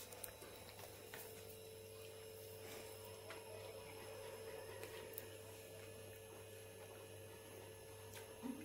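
Near silence: quiet room tone with a steady low electrical hum and a few faint ticks.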